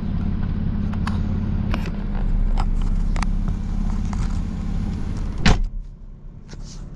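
Car engine idling with a steady low hum and scattered light clicks; a sharp knock comes about five and a half seconds in, after which the engine sound drops away.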